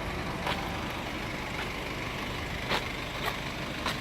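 Hino 195 truck's diesel engine idling steadily, with a few light clicks over the hum.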